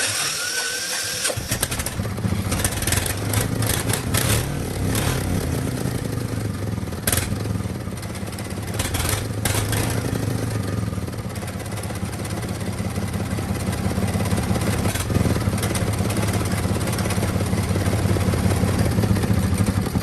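Small four-wheel tractor's diesel engine running under way. It comes in about a second in, then carries on as a steady low chugging that grows gradually louder in the second half, with a few sharp clicks.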